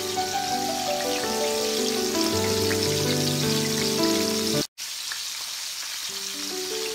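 Fish frying in oil in a stainless steel pan: a steady sizzle with light crackling, under background music. Both cut out for an instant about two-thirds of the way through.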